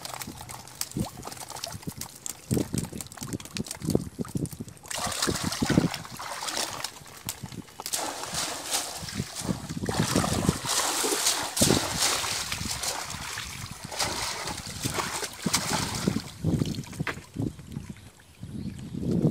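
Water splashing and trickling as a wet bamboo box fish trap is emptied over a plastic crate, with scattered knocks and clatters of the trap and crate against the wooden boat.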